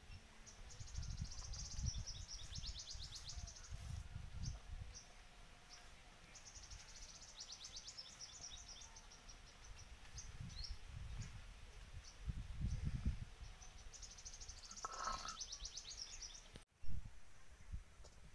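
Birds trilling and chirping in three spells of rapid high notes, over bursts of low rumble. Near the end there is a single sharp knock.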